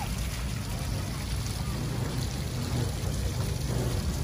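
Small water jets of a stone fountain splashing and trickling, with a steady low rumble underneath.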